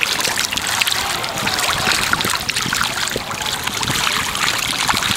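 Water splashing at the surface, a dense crackle of many small splashes and drips, as a shoal of fish snatches at food.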